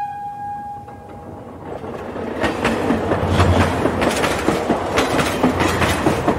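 A train running on track, its wheels clattering over rail joints in repeated clacks that grow louder from about two seconds in. At the start a pitched horn tone fades out.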